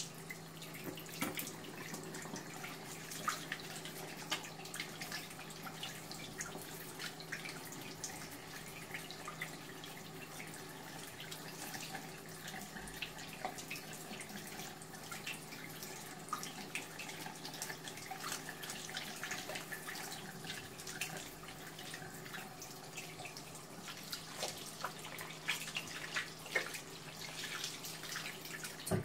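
Water running from a waterfall-style bathroom tap into a ceramic basin, splashing as hands are rubbed and rinsed under the stream, with a steady low hum beneath it. The flow stops right at the end.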